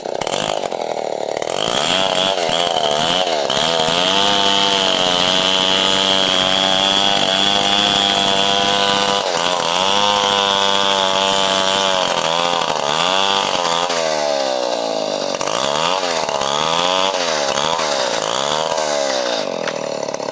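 Stihl 070 two-stroke chainsaw idling, then revved up and held at high speed for several seconds. It is then revved up and down repeatedly and drops back to idle near the end.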